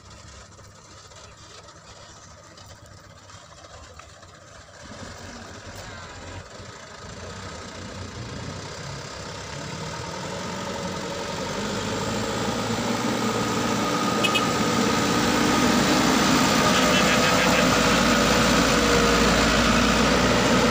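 Light haul trucks' engines running as the convoy drives up. The sound grows steadily louder, becoming loud and close in the last few seconds as one truck passes right by.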